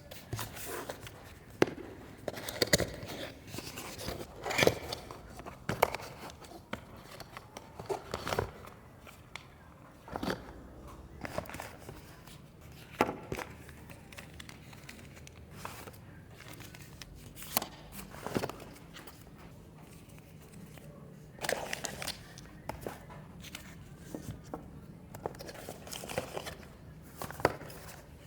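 Packaging and parts of a new action camera being handled and unboxed: irregular clicks, taps and knocks with some crinkling of wrapping.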